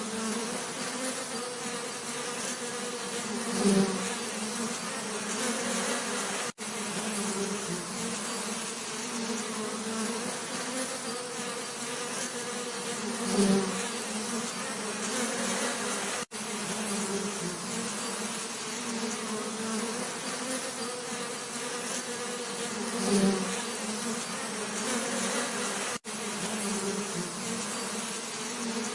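Bees buzzing in a steady, low hum. About every ten seconds one bee comes close and the buzz swells loudly for a moment, and three times the sound cuts out for an instant.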